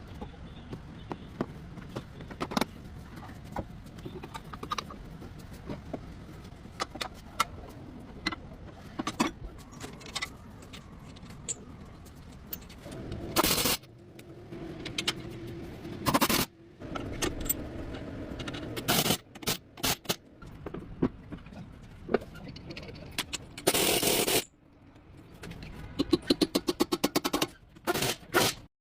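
Hand tools working on a car's front CV axle and suspension: scattered metal clicks, clanks and scrapes. Near the end come a loud burst of about half a second and then a quick run of clicks.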